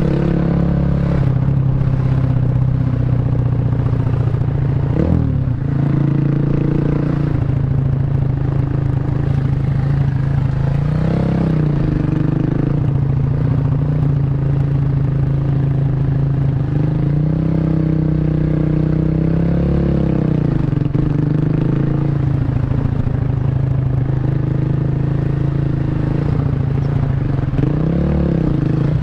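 Bored-up 150cc Honda Revo's single-cylinder four-stroke engine running through a CLD C7 aftermarket exhaust while ridden, holding a steady note with several rises and dips in pitch as the throttle opens and closes, about five seconds in, around eleven seconds, between seventeen and twenty seconds, and near the end.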